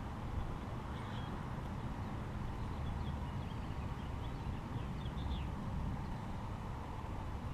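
Steady low wind rumble on the microphone, with small birds chirping faintly now and then.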